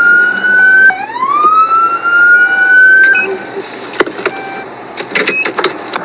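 Police car siren wailing in two slow rising sweeps that hold near the top, then cutting off about three seconds in, sounding to pull a car over for a traffic stop. A few sharp clicks follow.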